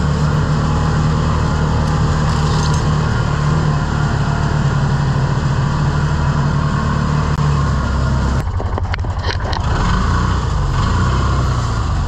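Side-by-side utility vehicle's engine running steadily while it is driven, heard from the driver's seat. About eight and a half seconds in it drops to a lower, uneven note.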